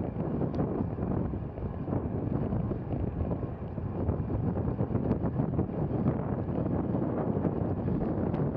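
Steady rumble of wind on the microphone and tyre noise from a velomobile rolling at about 20 mph on pavement, with a few faint clicks.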